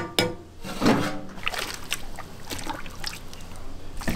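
A metal ladle clanks against a large cast-iron cauldron, with a sharp knock at the start and another near the end. Broth is scooped and poured, trickling and splashing into the pot.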